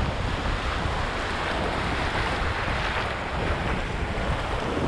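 Surf breaking and washing up over a sandy beach, a steady rush of water, with wind buffeting the microphone.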